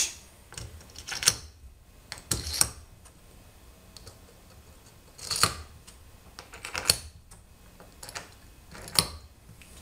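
Solid V-wheels for a CNC router gantry being set one at a time onto the bolts and spacers of the metal gantry plate, each landing with a short click. About half a dozen clicks, spaced irregularly.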